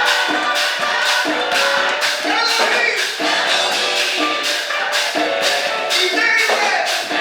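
Church music with singing over a steady percussion beat of a little over two sharp strokes a second.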